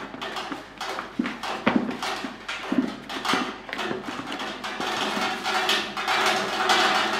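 Hands kneading soft wheat-flour dough in a plastic basin: irregular thuds and slaps, a few every second, coming thicker in the second half.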